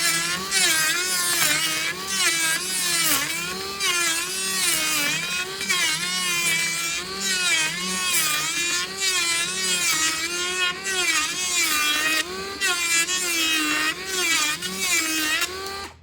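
Electric hand planer running as it cuts along a board edge to true it for joining. Its motor whine sags and recovers about once a second under load, then cuts off suddenly near the end.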